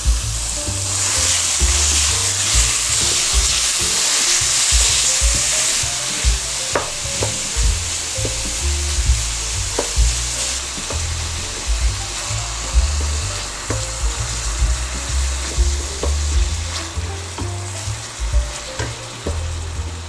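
Food sizzling as it fries in a pan while being stirred, with a few sharp taps of the utensil against the pan. The sizzle is loudest in the first few seconds, then eases a little.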